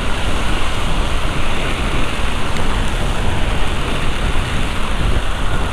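Steady rush of heavy rain and riding wind on the camera microphone of an electric scooter moving along a wet road. There is no engine note.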